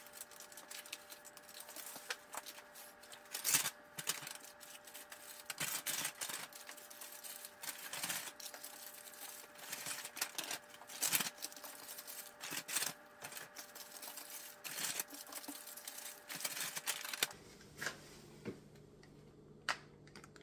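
Glassine paper cookie bags and a kraft paper bag being handled and packed: rapid crinkling and crackling paper with many sharp clicks, thinning out near the end.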